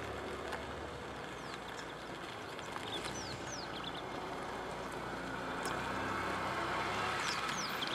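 Engine of a game-drive vehicle running steadily as a low hum under a noise bed. A few short, high, falling bird chirps come through it, several around the middle and a couple near the end.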